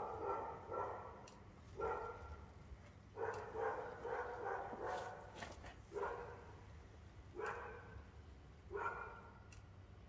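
A dog barking repeatedly, about one bark every second and a half.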